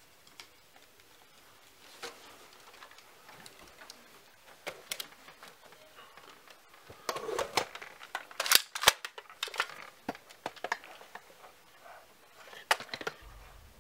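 Close-up rustling and scattered sharp clicks of a person moving and handling gear, sparse at first, then a busier run of louder clicks and rustles from about halfway through that fades again near the end.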